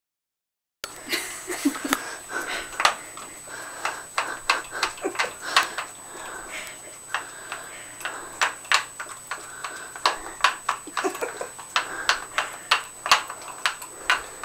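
A Boston terrier and a Yorkshire terrier licking ice cream out of small plastic cups on a tile floor: quick, wet licking smacks and cup clicks at an irregular rate of several a second, starting about a second in.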